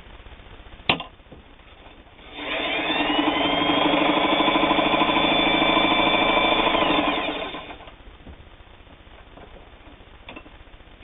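A sharp click about a second in. Then a Japanese-made Singer 223 sewing machine runs at speed for about five seconds, stitching a short straight stitch through flannel: a fast, even needle clatter over a motor whine that rises as it starts and falls away as it stops.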